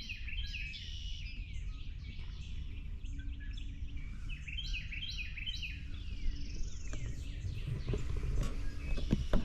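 A chorus of many birds chirping and singing, with quick repeated notes and trills, over a steady low rumble. A few sharp knocks come near the end.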